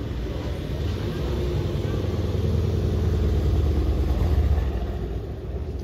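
Mercedes-AMG C63 sedan's twin-turbo V8 running as the car pulls away and drives past at low speed, the engine note building to a peak about four seconds in and then fading.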